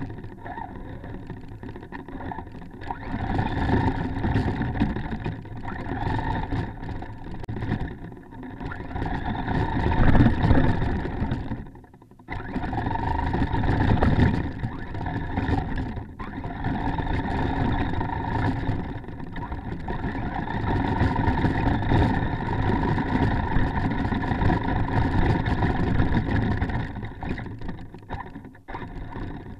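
Traxxas Stampede RC truck driving through snow, heard from on board: a steady motor and drivetrain whine over the rough noise of the tyres churning snow, swelling and easing with the throttle. It drops away briefly about twelve seconds in and again near the end.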